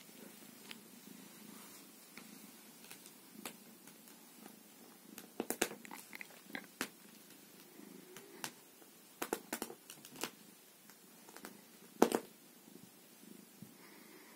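Tabby cat purring steadily while being stroked, broken by scattered sharp clicks and knocks. The loudest click comes near the end.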